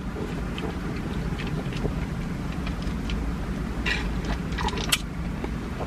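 Steady low rumble, like a vehicle cabin with the motor running, with a few faint clicks and a brief mouth noise about four seconds in.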